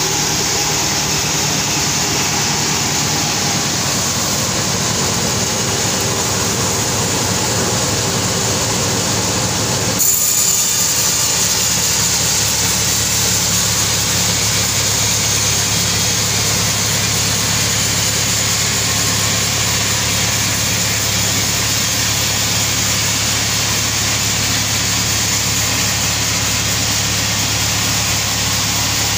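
Sawmill saw and its machinery running steadily and loudly. The sound shifts abruptly about ten seconds in, then carries on steadily.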